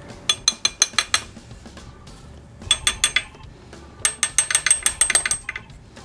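Quick light metal-on-metal taps in three bursts, about six a second, each with a short high ring: a steel wrench tapping a connecting rod cap on an R53 Mini Cooper S crankshaft to loosen the cap from the rod.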